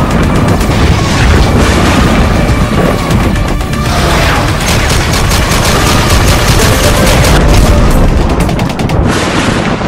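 Intro sound effects of rapid automatic gunfire and booms mixed with music. The shots come fast and evenly through the middle and stop abruptly near the end.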